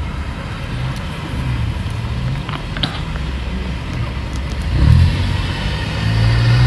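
Motor vehicle engine running with road noise: a steady low rumble that swells briefly about five seconds in.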